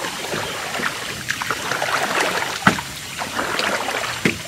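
Water sloshing and trickling around a small boat, with irregular knocks against the hull; the sharpest knock comes about two-thirds of the way through.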